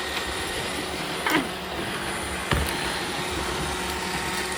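Robot vacuums running with a steady whir. A short falling chirp comes about a second in, and a single sharp knock comes about halfway through.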